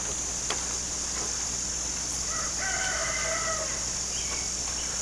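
A rooster crowing once, a call of about a second and a half starting about two seconds in, over a steady high chirring of crickets.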